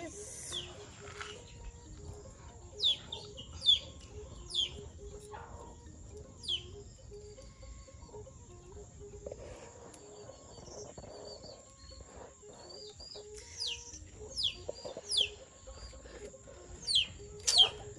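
Birds chirping: short, sharp, falling calls, several in quick succession around three to five seconds in and again in a cluster near the end.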